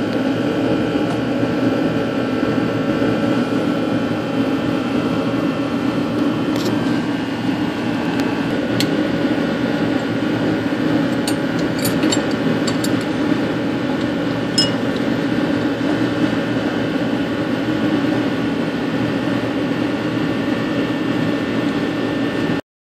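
Steady mechanical hum of a running machine, with a few light metallic clicks in the middle as the turbo actuator linkage is handled.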